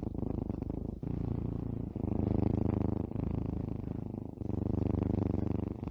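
A cat purring close to the microphone: a low, fast flutter that swells and eases every second or so as the cat breathes in and out.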